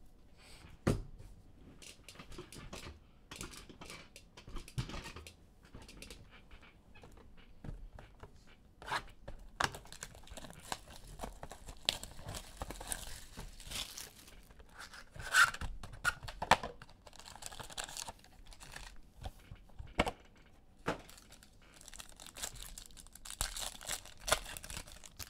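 Trading cards being handled: cards slid and tapped against each other, and foil card-pack wrappers tearing and crinkling, in irregular rustles with a few sharp snaps.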